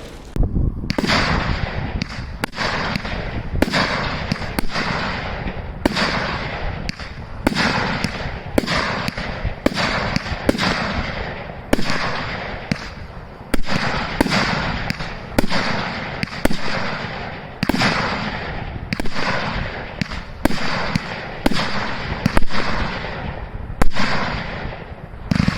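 A Gemstone Fireworks 'Big Boom' 25-shot barrage cake firing its shots in rapid succession, about one to two a second. Each shot is a sharp bang that trails off before the next.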